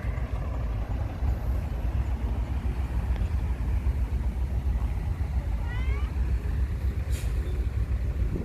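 A calico stray cat meows once, a short rising call about six seconds in, over a steady low rumble.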